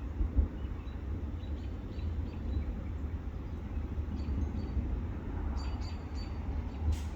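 Outdoor ambience: scattered short bird chirps, in a few small groups, over a steady low rumble.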